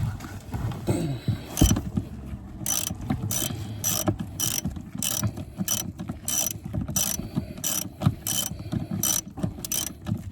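Hand ratchet on an extension turning out a car seat's floor mounting bolt. It clicks in short bursts about twice a second as the handle is swung back and forth.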